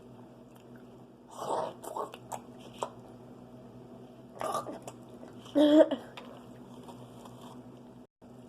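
A person biting into and chewing fried chicken close to the microphone, in a run of short wet mouth noises, with two short vocal sounds about halfway through.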